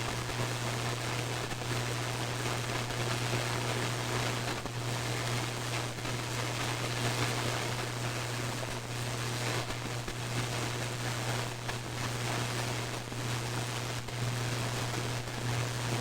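Radio receiver static during a thunderstorm: a steady hiss over a constant low hum, broken by scattered brief crackles, the static bursts of lightning strikes.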